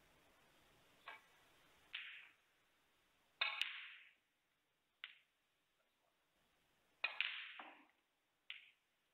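Snooker balls clacking: the cue tip striking the cue ball and ball striking ball, about six sharp clicks that each fade quickly, the loudest about a third of the way through and again about three-quarters through.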